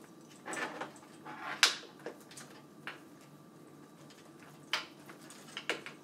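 A few soft clicks and brief rustles of small objects being handled, the sharpest click about one and a half seconds in.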